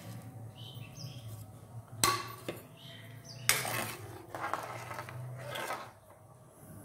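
Metal ladle clinking and scraping against a steel wok while stirring whole spices into hot water, with two sharp knocks about two and three and a half seconds in. A low steady hum runs underneath and stops near the end.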